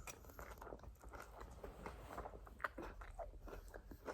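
Faint close-up chewing of a mouthful of Frosted Flakes and multigrain Cheerios: many small, irregular crunches.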